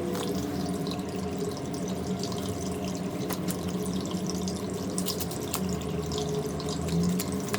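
Steady low hum with scattered light clicks and taps, as small parts of a cardboard toy car kit are handled and fitted into slots.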